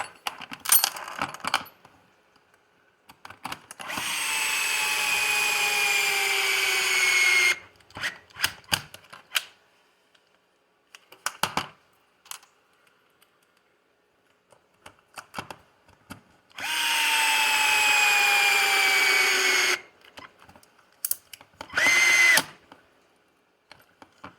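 Electric power screwdriver running twice for about three seconds each, driving the screws that bolt the C block onto the RC buggy's rear chassis; its whine drops slowly in pitch as each screw tightens. A short burst of the driver comes near the end, with small clicks and taps of parts being handled in between.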